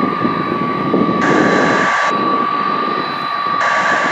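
Taxiing aircraft at low power: a steady turbine whine over a rushing jet noise. It comes from the turbofans of an Airbus A300B4 freighter, with a twin turboprop taxiing close by.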